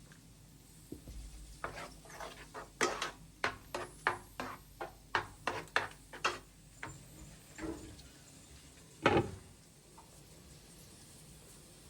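A run of short, light knocks and clatters of objects being handled, about two to three a second, then one louder knock about nine seconds in.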